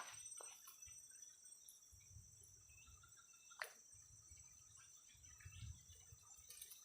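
Near silence with a faint, steady high-pitched insect drone, and a single sharp click about three and a half seconds in.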